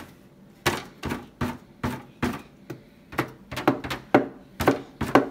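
Paint-covered balloons being dabbed and thumped against paper masks on a table: a quick run of soft thumps, about two to three a second, growing louder toward the end.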